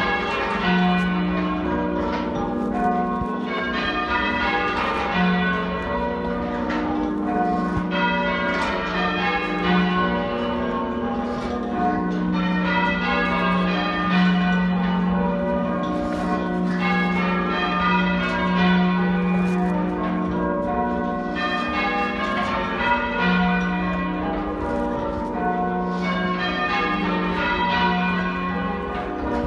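Church bells in half-muffled change ringing: a continuous, steady sequence of overlapping bell strikes, each bell ringing open at one stroke and damped by its leather muffle at the next. Half-muffled ringing is the style used for mourning or remembrance.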